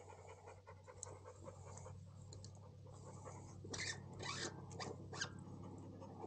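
A dog panting, louder for a few breaths about four seconds in, with a few light clicks.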